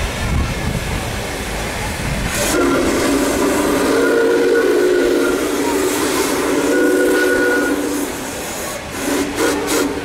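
Steam chime whistle of Canadian Pacific 4-6-4 Hudson No. 2816 blowing a chord of several notes: one long blast of about five seconds starting two and a half seconds in, then a short blast near the end. Low rumbling noise comes before the first blast.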